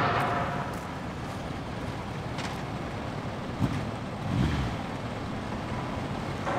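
Outdoor ambience: wind on the microphone over a steady hum of distant road traffic.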